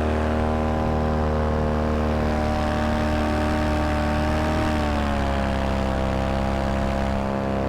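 Moster 185 single-cylinder two-stroke paramotor engine and propeller running steadily in flight. Its pitch drops a little about five seconds in.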